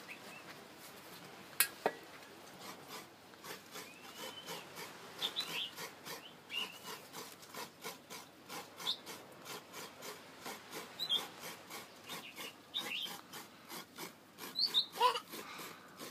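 Coconut half scraped by hand against the toothed metal blade of a wooden coconut-grating stool, grating out the white flesh. The rasping strokes start a few seconds in and then repeat steadily.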